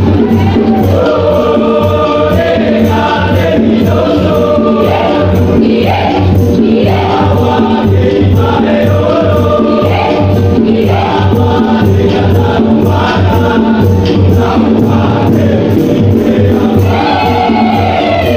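Mixed student choir singing in harmony over a steady, even beat.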